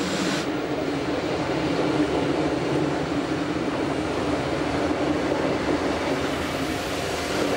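Rhaetian Railway Bernina-line electric railcar and its coaches passing close by: a steady rumble of wheels and running gear on the rails.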